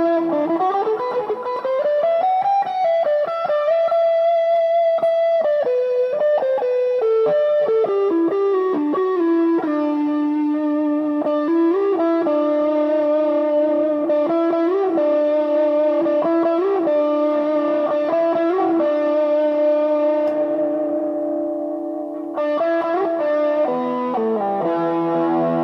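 Washburn MG-300 electric guitar played through effects with some distortion: a single-note melody with slides and long sustained notes. About 22 seconds in, after the notes fade, a new chord is struck, followed by low notes stepping downward.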